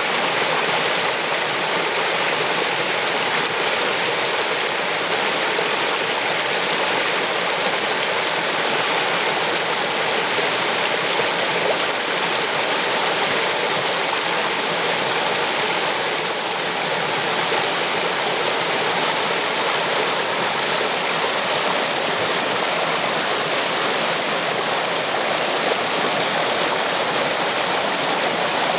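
Shallow stream water flowing and swirling past a tree trunk standing in the current: a steady, even rush of water.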